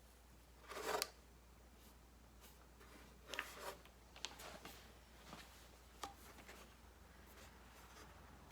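Quiet handling noises of a decal being laid onto a motorcycle side panel: a brief scratchy rub about a second in, then scattered faint taps and rustles.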